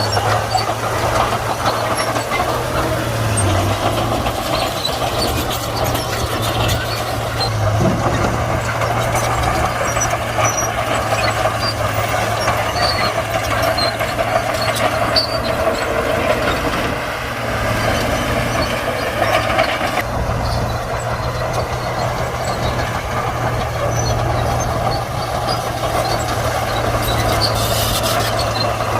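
Komatsu D41P crawler bulldozer working, its diesel engine running steadily with a constant low hum, and frequent light knocks throughout.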